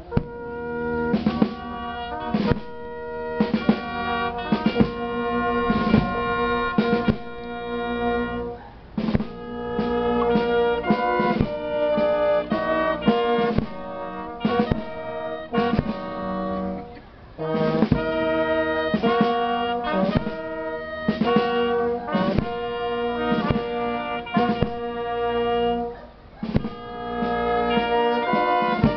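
Brass band playing held chords, with regular drum strokes and short breaks between phrases.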